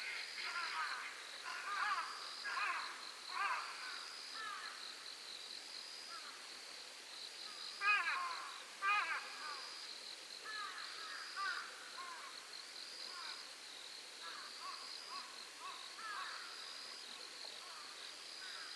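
Night lake ambience: insects trilling high in short pulsed phrases that repeat about every second and a half, under bursts of harsh, falling bird calls. The calls are loudest about eight and nine seconds in, then come fainter and sparser.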